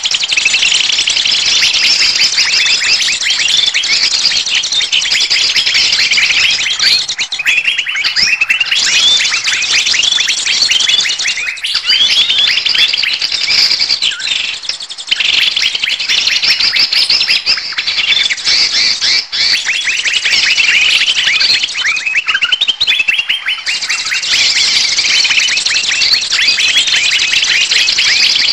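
Bird-luring recording: a dense chorus of many small birds chirping rapidly and without a break, fast short high notes overlapping, thinning briefly about halfway through. It is a noisy flock mix of the kind trappers play to draw wild birds in.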